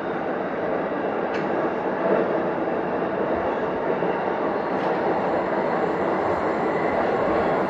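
Keihin-Tohoku Line E233-series electric commuter train running along the line: steady rolling noise of steel wheels on rail, with a faint motor hum and a couple of light clicks.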